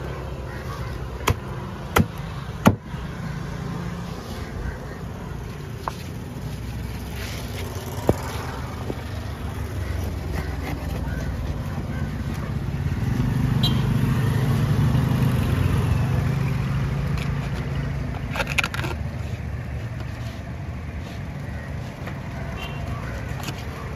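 Road traffic: a motor vehicle's engine rumble swelling and fading around the middle, over a steady low background rumble. A few sharp knocks sound in the first few seconds, another about eight seconds in, and a short cluster a little after the middle.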